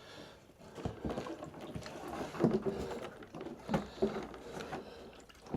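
Motorcycle fuel tank being handled and lowered into place: a few irregular dull knocks and scrapes of plastic and metal.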